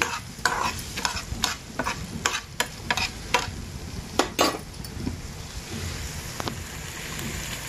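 Chopped onion, carrot and chillies sizzling in hot oil in a pan while a metal spoon stirs them. The spoon clicks and scrapes against the pan for the first four seconds or so, then the steady sizzle of frying continues alone.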